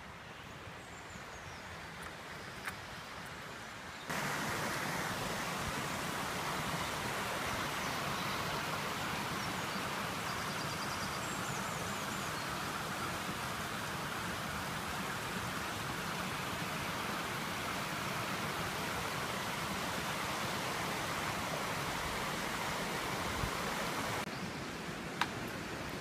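Stream flowing over rocks: a steady rushing hiss of water that cuts in suddenly about four seconds in and cuts off near the end, with quieter outdoor background on either side.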